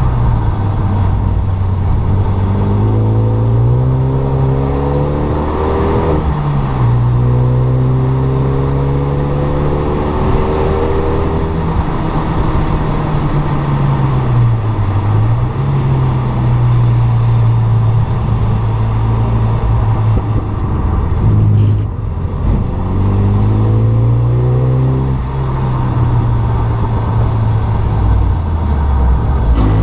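Renault Mégane 3 RS's stage-2 tuned turbocharged four-cylinder engine being driven hard: the revs climb and fall several times, with sudden drops in pitch like gear changes.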